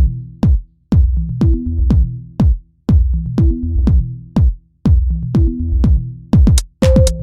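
Electronic workout music with a drum-machine beat of about two hits a second over a repeating bass line; near the end the hits come quicker and a higher held synth note joins.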